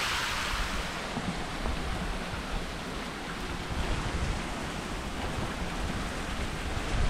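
Steady rush of flowing river water and distant waterfalls, with wind rumbling on the microphone. A nearer splashing of water fades away about a second in.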